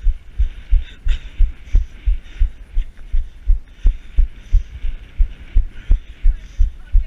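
A runner's footfalls in trainers, a regular low thud about three times a second, with a hiss that comes and goes between them.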